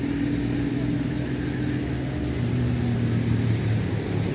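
A motor vehicle engine running steadily with a low hum, its pitch dropping slightly about halfway through.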